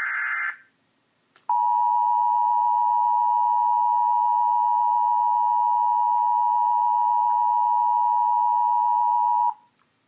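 Emergency Alert System attention signal: a loud, steady, single-pitched alert tone held for about eight seconds, starting about a second and a half in and cutting off sharply. Just before it, the tail of the data-burst header ends, followed by a second of silence.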